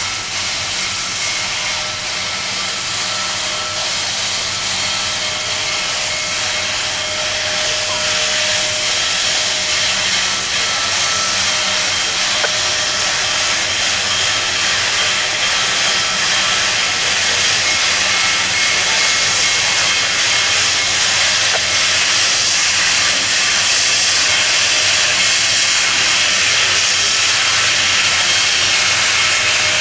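Steam hissing steadily from Union Pacific Big Boy #4014, a 4-8-8-4 articulated steam locomotive, growing gradually louder with no exhaust beat.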